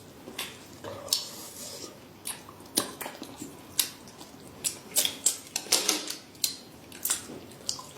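Tableware clicking and knocking against dishes during a meal: a run of irregular sharp taps, more frequent in the second half.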